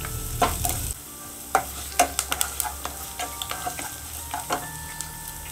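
Vegetables and fresh curry leaves frying in oil in a non-stick pan, sizzling, while a wooden spatula stirs and scrapes them with irregular clicks and scrapes against the pan.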